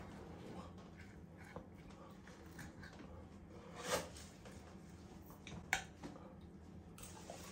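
Knife and fork cutting steak on a plate: faint scraping and small taps, with two sharper clinks of cutlery on the plate about four seconds and nearly six seconds in. A steady low hum runs underneath.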